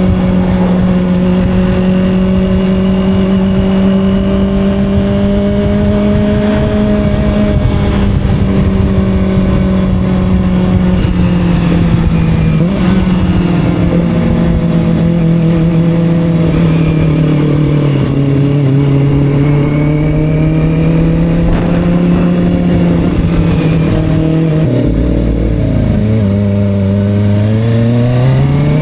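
250 cc sport motorcycle engine running at steady cruising revs, its pitch sagging slowly in the middle as the bike eases off. Near the end the revs drop sharply, then climb steadily again as it accelerates.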